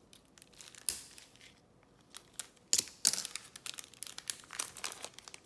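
Foil trading-card wrapper crinkling in gloved hands as the card is worked out of it: one sharp crackle about a second in, then a busy run of crinkles and clicks from about halfway.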